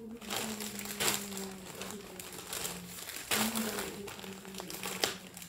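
Plastic clothing packaging crinkling and rustling as folded T-shirts are handled and unwrapped, with several sharper crackles.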